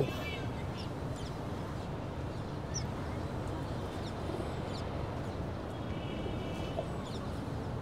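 Open-air city ambience: a steady hum of distant traffic and town noise, with a few short bird calls, one near the start and a longer run of them a little past the middle.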